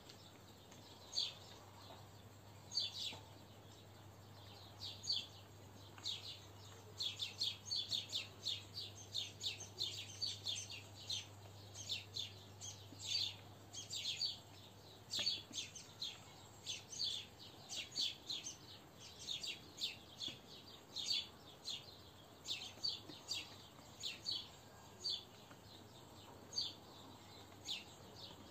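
Small birds chirping: many short, high chirps in irregular clusters, thickest in the middle of the stretch.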